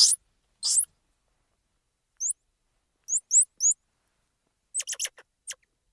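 Squirrel monkey calling in short, high-pitched chirps, in ones and small groups with silent gaps between, several sweeping sharply upward in pitch. A quick run of about four chirps comes near the end.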